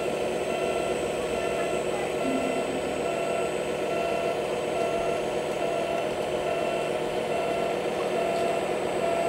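Radio-controlled scale model Scania tipper truck running slowly in reverse: a steady, even motor hum with faint on-and-off tones over it.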